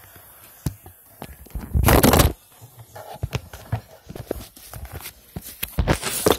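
Handling noise from a handheld camera being gripped and moved: irregular knocks, taps and rubbing on its microphone, with two louder scraping rushes about two seconds in and near the end.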